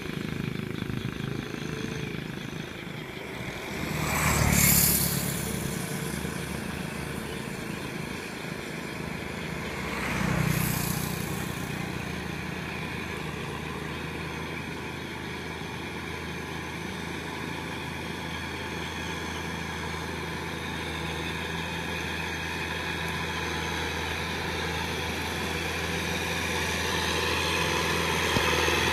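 Kubota tractor's diesel engine running steadily, growing somewhat louder near the end. Two short rushing swells of noise come over it, about four and ten seconds in.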